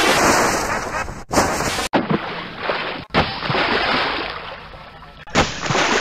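A water sound effect, rushing and splashing, spliced into about five pieces. Each piece starts suddenly, fades, and is cut off abruptly by the next, with new pieces about a second in, near two seconds, near three seconds, and about five seconds in.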